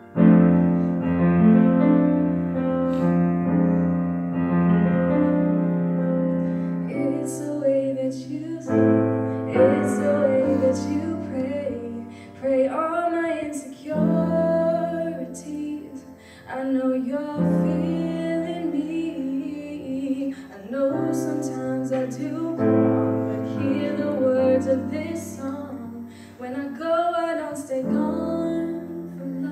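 A woman singing a slow ballad solo over sustained piano chords. The piano plays alone for the first several seconds, and the voice comes in about seven seconds in.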